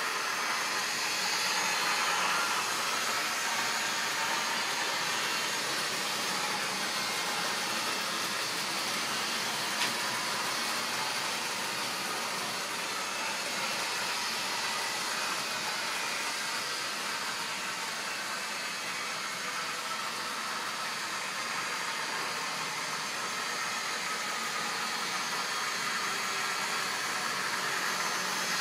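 Model railway train running past on its track: a steady whirring of the locomotive's small electric motor and the wheels of a long rake of tank wagons rolling on the rails, with one small click about ten seconds in.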